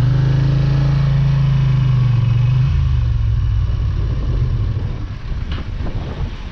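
Motorcycle engine running under way at a steady pitch. About three seconds in, the throttle eases off and the engine note drops and grows quieter.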